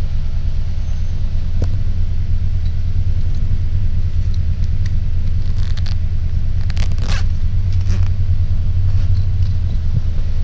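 Steady low rumble of a city transit bus idling, heard from inside the passenger cabin, with a few brief rustling scrapes about six to eight seconds in.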